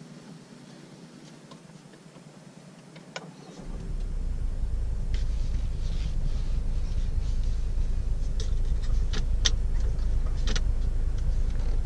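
Cabin sound of a 2019 Ford S-MAX: a quiet idle with a faint steady hum, then about four seconds in a low engine and road rumble rises sharply as the car pulls away and keeps running, with a few light clicks on top.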